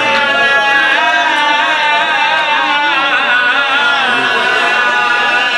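Men's voices singing a lament in long, wavering held notes, amplified through a microphone.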